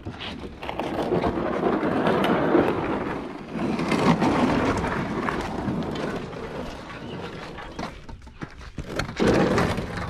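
Canoe hull scraping and rumbling as it is dragged over a concrete-plank boat ramp, in two long pushes and a shorter one near the end.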